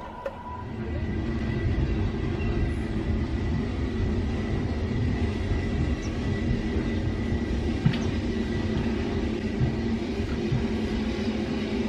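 SR S15 class 4-6-0 steam locomotive approaching tender-first: a steady low rumble of the engine and its wheels on the rails, which rises about a second in and stays up as it draws nearer.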